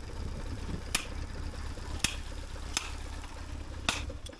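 BMW R1150GS flat-twin (boxer) motorcycle engine idling with a steady low rumble, which dies away at the very end. Several sharp clicks sound over it, about one a second.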